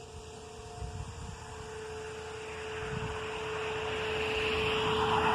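Distant outdoor tornado warning siren sounding one steady tone, while a car approaches and grows louder, passing near the end.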